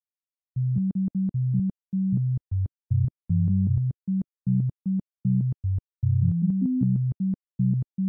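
Intro music: short, low, clipped notes in a choppy stop-start rhythm, with brief silences between them.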